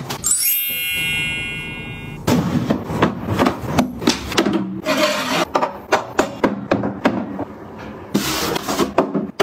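A clear ringing tone for about two seconds at the start, then a run of light knocks and taps as items are handled and set into white cabinet shelving.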